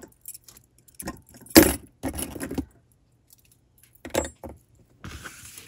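Metal costume-jewelry brooches clinking and jangling against each other in several separate clatters, the loudest about a second and a half in, with a soft rustle near the end.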